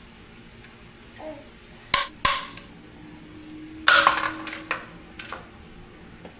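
Hard toys being thrown and landing: two sharp knocks about two seconds in, then a longer clatter of knocks about four seconds in.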